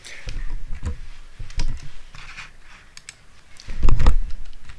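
Computer keyboard and desk handling close to the microphone: a run of irregular clicks and knocks with low thuds, the loudest cluster about four seconds in.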